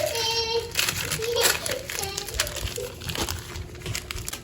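Gift wrapping crinkling and rustling in irregular bursts as a child tears open the cover of a present.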